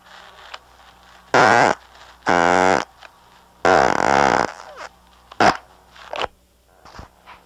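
Recorded fart sounds played back from a cassette tape: three long, loud farts about a second apart, the third the longest, then two shorter ones.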